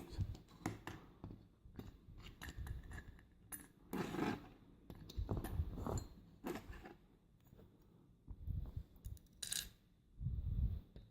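Small metal lock parts (pins and wafers of a disassembled ASSA euro cylinder) and tools clinking, tapping and scraping in short, irregular clicks, with a brief quiet pause a little past the middle.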